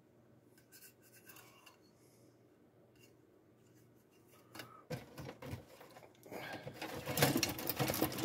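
A few faint clicks, then from about five seconds in, the crinkling and rustling of a clear plastic parts bag being handled, growing louder toward the end.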